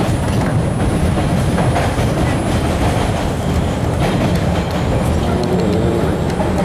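MBTA Red Line subway car running at speed: a steady, continuous rumble of the wheels on the rails and the car body in motion.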